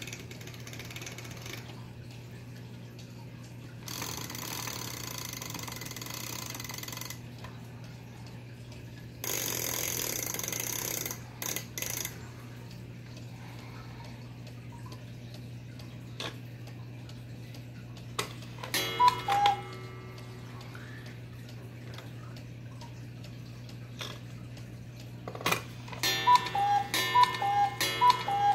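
Vintage Regula Black Forest cuckoo clock: a few seconds of hissing handling noise and clicks, then the cuckoo calls once, a high note then a lower one, about two-thirds through. Near the end it starts calling over and over as the clock strikes the hour.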